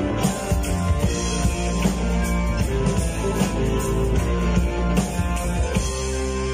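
Live rock band playing: electric guitar, bass guitar, keyboard and drum kit together, at a steady beat. Near the end the drum strokes thin out, leaving the guitars and keyboard holding chords.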